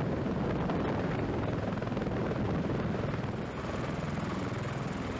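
MV-22 Osprey tiltrotor hovering in helicopter mode: steady rotor and twin turboshaft engine noise.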